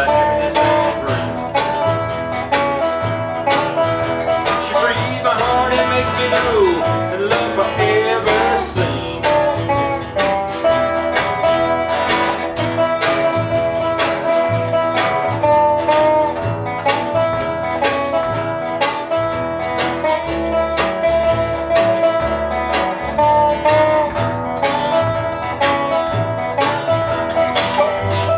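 Acoustic string band playing an Appalachian folk blues tune: fiddle, resonator guitar and acoustic guitar over a steady upright bass beat, with sliding notes a few seconds in.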